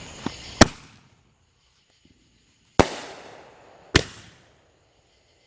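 Three sharp bangs of firework mortar shells bursting in the air, spaced unevenly over a few seconds, each trailing off in a fading rumble.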